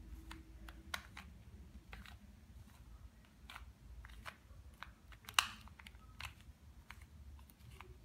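Plastic layers of a 2x2 Rubik's cube being turned by hand: a run of irregular clicks and clacks, the loudest about five and a half seconds in.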